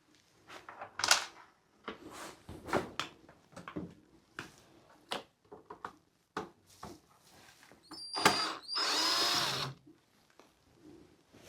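Cordless drill or electric screwdriver running, with one longer run of about a second near the end, amid irregular clicks and knocks of screws and plastic parts being handled while a bathroom heater is taken apart.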